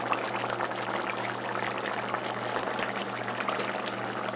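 Shrimp curry sauce boiling in a pot: a steady bubbling with many small pops, over a steady low hum.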